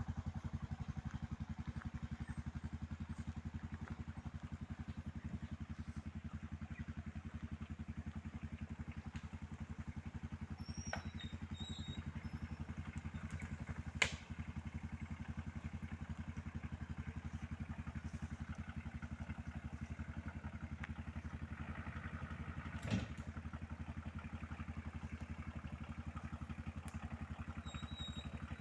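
An engine running steadily, a low even rumble with a fast regular pulse, with one sharp click about halfway through and a short knock a little later.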